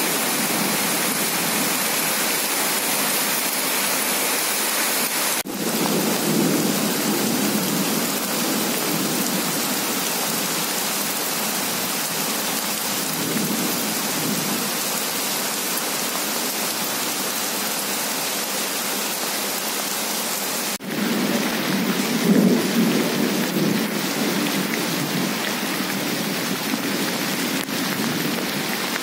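Heavy rain pouring onto wet ground and standing water, a steady hiss, with a few low rumbling swells, the loudest about a second after a cut near 21 s.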